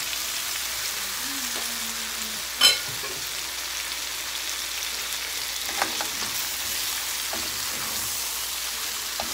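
Marinated beef sirloin slices frying in oil in a hot wok, a steady sizzle. A single sharp metallic clink rings out about three seconds in, and a metal spatula stirs the meat in the second half.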